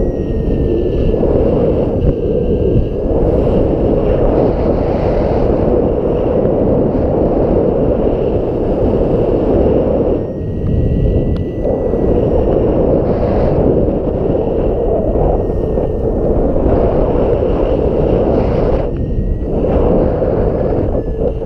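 Strong wind buffeting the microphone, a loud low rushing that eases briefly twice.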